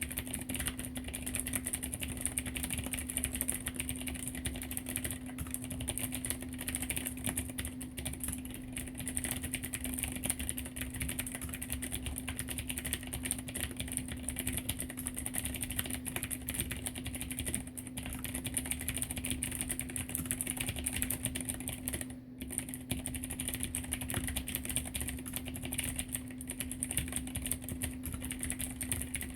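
Mechanical keyboard with clicky Cherry MX Blue switches on light springs sold as 35g, typed on quickly and continuously: a dense stream of keystroke clicks with a brief pause about two-thirds of the way through. A steady low hum runs underneath.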